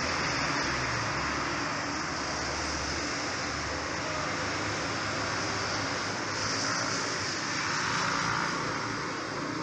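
Steady distant engine noise under a constant hiss; a low hum fades about three and a half seconds in.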